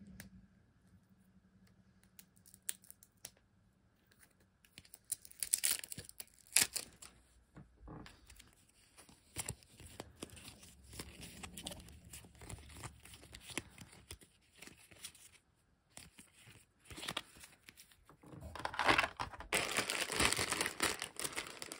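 Board game components being handled: scattered clicks and rustles of cardboard tiles shuffled in the hand, then a plastic bag of wooden pieces crinkling louder near the end.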